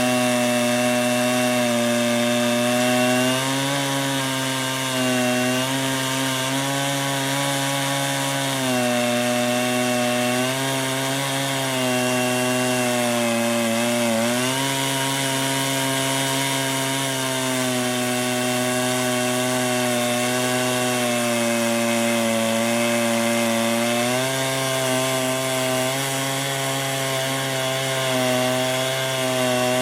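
Chainsaw running flat out under steady load, ripping lengthwise through a cedar log in a chainsaw mill. The engine pitch sags briefly about halfway through and then recovers.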